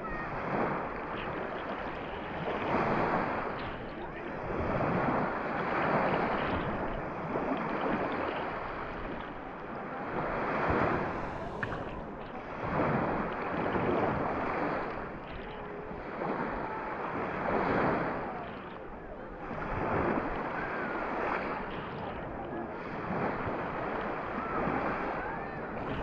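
Small sea waves breaking at the shoreline and washing up over the sand, the rush swelling and fading every two to three seconds.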